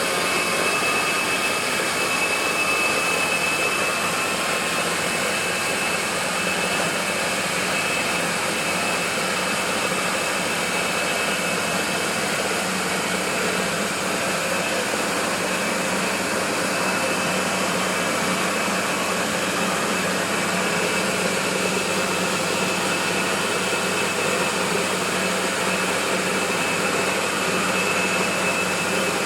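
Combined rice milling and crushing machine running steadily, its single motor driving both the huller and the crusher: an even, dense whir with a faint high whine over it.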